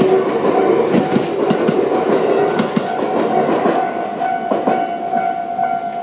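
A Tobu 800 series electric train clatters through a level crossing, its wheels clicking over the rail joints, and the sound fades about four seconds in as the last car passes. Through it all the crossing's Tobu-type electronic warning bell rings steadily.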